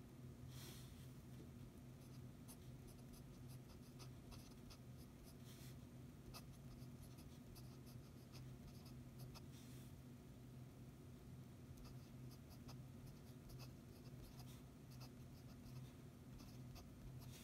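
Faint scratching of a fountain pen nib on paper in short, irregular strokes and taps as characters are written by hand, over a steady low hum.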